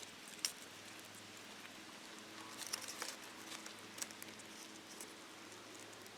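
Faint, scattered light clicks and rustles of calipers being handled and fitted around a large beet.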